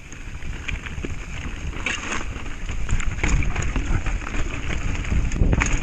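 Mountain bike rolling down a rocky trail, tyres crunching and the bike knocking and rattling over rocks, with wind rumbling on the camera microphone. The knocks come thickest near the end.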